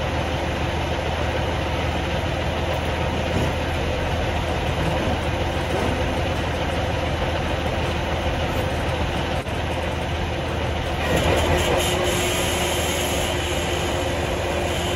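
Steady machinery drone with a low hum, from the milk pickup equipment at the milk house. About eleven seconds in it grows a little louder and a steady higher hum joins in.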